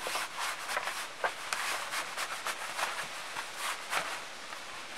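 Ripstop nylon of a Big Agnes Little Red kids' sleeping bag rustling as its sleeve is pulled up over a self-inflating sleeping pad, in a run of short, irregular scrapes.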